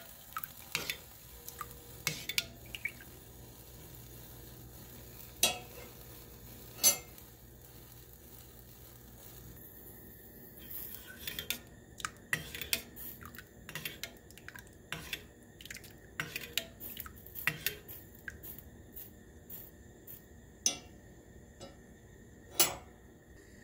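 A steel spoon stirring milk in a stainless steel pan, clinking and knocking against the pan's sides in scattered taps that come thicker in the second half. A single louder knock comes near the end.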